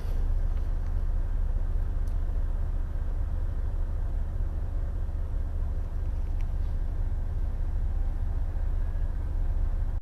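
Steady low rumble of a semi truck's diesel engine idling, heard from inside the cab, with a few faint clicks.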